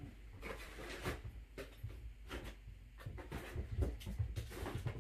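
Kittens scampering and pouncing around a nylon pop-up play tunnel: irregular soft rustles, scratches and taps, with a few low thumps past the middle.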